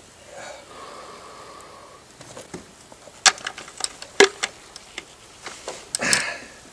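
Relay cable plugs being fitted onto the metal audio connectors of an AN/PRC-77 radio, with the cable handled: a series of sharp clicks and knocks, the loudest about four seconds in, and a short rustle near the end.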